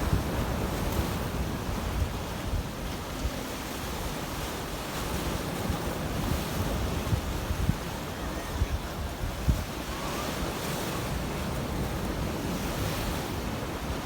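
Mediterranean surf: waves washing steadily onto the shore, with wind gusting on the microphone.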